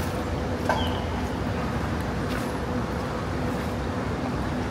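Steady urban background noise with a low rumble and a faint steady hum, broken by a brief click and a short high chirp about a second in.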